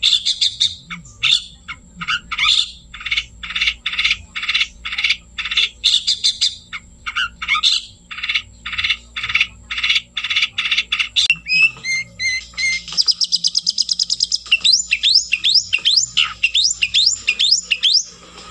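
Long-tailed shrike (cendet) singing steadily: a long run of scratchy notes, about two to three a second, then in the last third a rapid high trill and a string of sharp upward-sweeping whistles.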